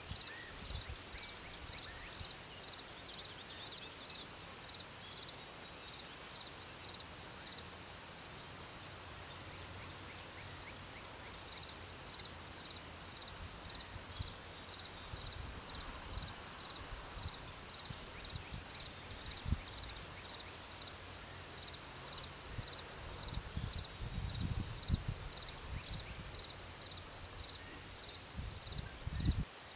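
Insects, cricket-like, chirping in a steady, evenly spaced pulsing rhythm, high-pitched, with occasional low rumbles underneath.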